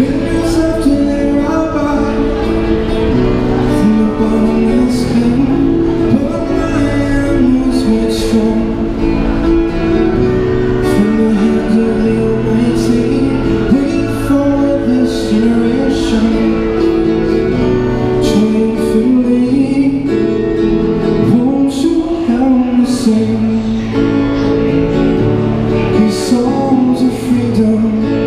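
A man singing into a microphone while strumming an acoustic guitar: a live busking song.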